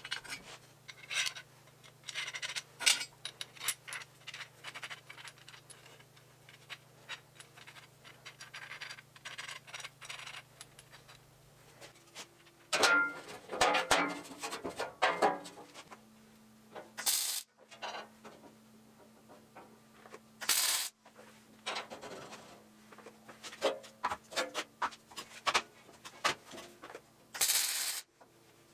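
Steel parts clinking and knocking as a steel rod and tube are handled and fitted together to make a hinge, over a faint steady hum. In the second half come several short bursts of arc-welding crackle as the hinge tubes are tack-welded to the steel sheet.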